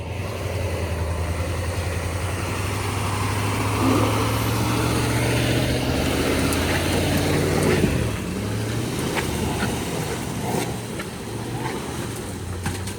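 A vehicle engine running, working harder and louder for a few seconds in the middle, then dropping off about eight seconds in and settling back to a steadier run.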